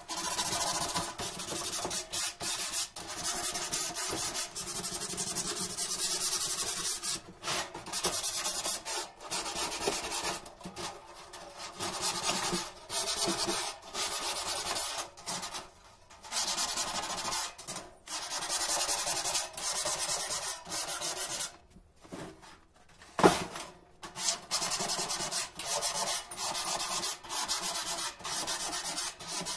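Sheet metal being sanded by hand with a sanding disc held in the fingers: a rasping hiss in repeated back-and-forth strokes, roughly one a second, with a few short pauses. One sharp knock about three-quarters of the way through.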